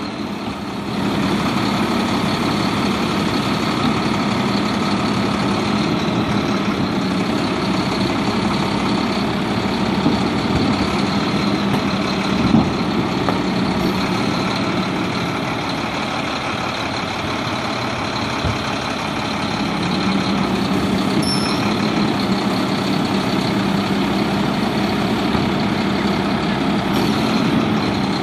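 Diesel engine of a Mack LR side-loading garbage truck running steadily at the curb while its hydraulic cart tipper works. A steady hum fades for a few seconds past the middle, and a few short knocks of carts against the tipper sound, the loudest about halfway through.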